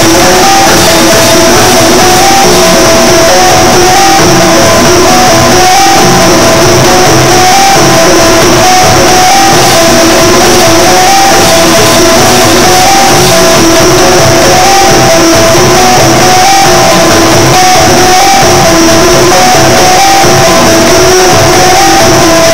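Loud dance music with a plucked-string melody repeating a short phrase over and over, without a break.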